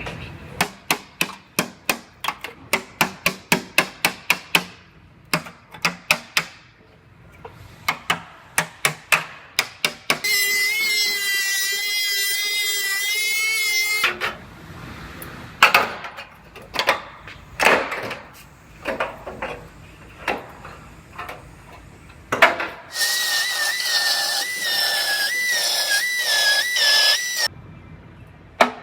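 Background music: a quick, even wood-block beat at about four clicks a second, with two stretches of a high whistling melody line a few seconds long.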